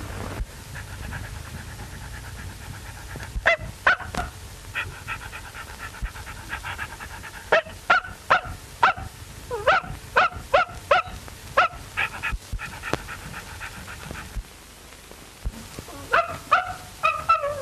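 Small dog yapping in quick runs of sharp, high-pitched barks in three bouts, with a thin whine between them, as it plays with a German shepherd.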